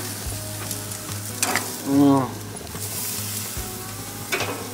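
Food sizzling on a gas grill, a steady hiss, with a few sharp clicks of metal tongs. A short wavering pitched sound about two seconds in is the loudest thing.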